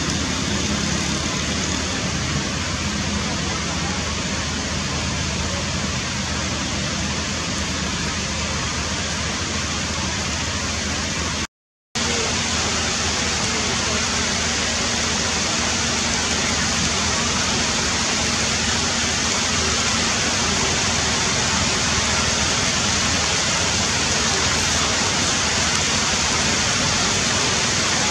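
Steady, loud rushing hiss with no distinct events in it. It cuts out completely for about half a second around twelve seconds in, then resumes unchanged.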